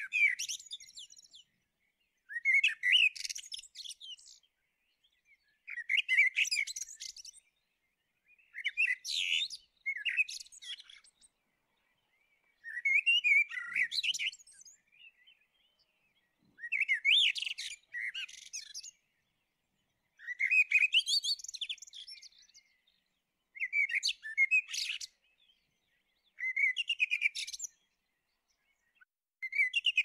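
Common (Eurasian) blackbird singing: about ten short song phrases roughly every three seconds, separated by silence. Each phrase starts on lower whistled notes and runs into high twittering.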